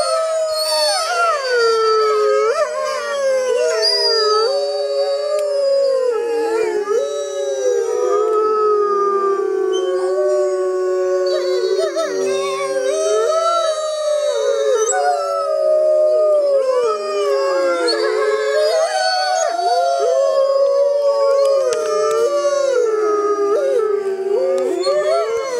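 A chorus of gray wolves howling. Several long howls overlap at different pitches, each rising and falling and weaving across the others.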